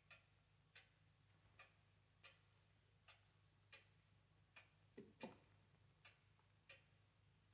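Faint clock ticking in an even tick-tock, about one tick every three-quarters of a second, over a low steady hum. A brief low creak-like sound comes about five seconds in.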